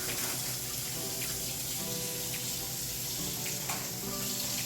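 Background music of held, gently changing notes over a steady hiss that sounds like water running.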